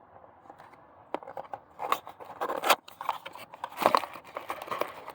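Packaging of a new camshaft adjuster magnet being opened by hand: irregular crinkling, rustling and small clicks, with louder bursts about two, three and four seconds in.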